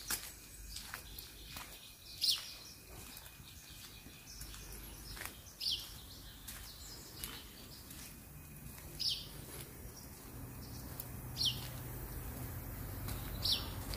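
A bird repeats a short, high, downward-sliding call about every two to three seconds, over a faint steady outdoor background. A low steady hum joins about halfway through.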